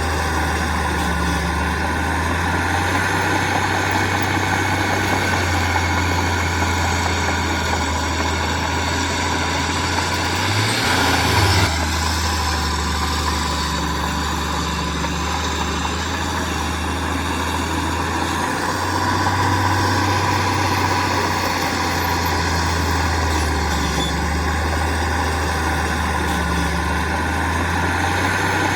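Heavy diesel engine of construction machinery running steadily with a deep hum, and a brief louder noisy burst about eleven seconds in.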